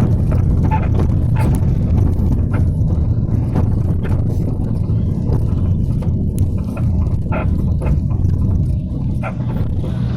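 Cabin noise inside a moving minibus: a steady low rumble of engine and tyres on a repaired road surface, with frequent short rattles and knocks from the vehicle's body and fittings.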